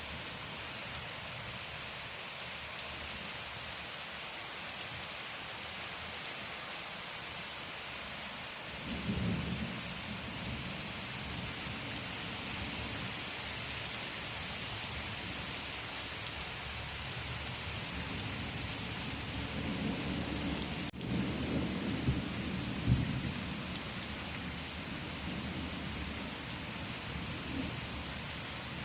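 Steady rain falling, an even hiss, with low rolls of thunder swelling about a third of the way in and again around two-thirds of the way through.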